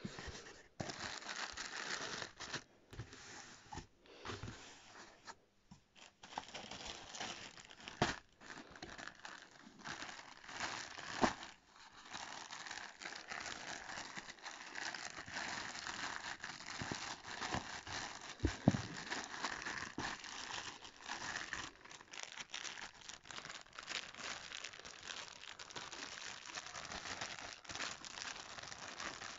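Clear plastic bag crinkling and rustling as it is handled, with a few sharp clicks along the way.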